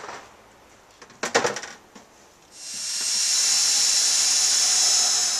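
A quick clatter of clicks, then a small high-speed motor or tool runs with a loud, steady hissing whine for about three seconds.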